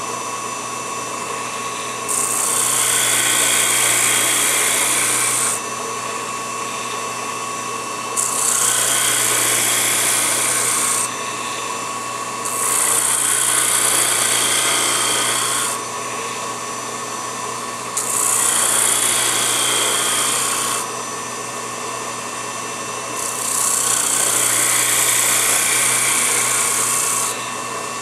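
Mini lathe motor running steadily with a high whine, while a small curved workpiece is pressed against its spinning sanding roller five times. Each press of about three to four seconds brings a loud, hissing grind, which drops back to the motor's hum when the piece is lifted off.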